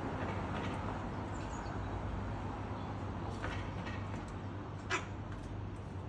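Sulphur-crested cockatoo feeding on fruit: a few short sharp clicks from its beak on the fruit and one brief, harsh squawk about five seconds in, over a steady background hum.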